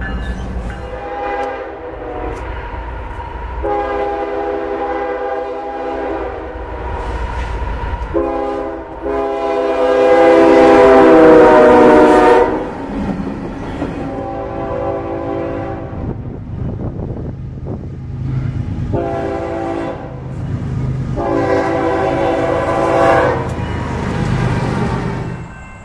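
Nathan K5HL five-chime locomotive air horn sounding a series of chord blasts: two long ones, the second the loudest, then a short one, and more blasts near the end. A low rumble of the train runs beneath.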